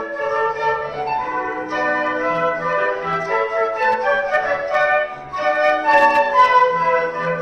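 Flute ensemble playing a melody in several-part harmony over grand piano accompaniment, with a brief break between phrases about five seconds in.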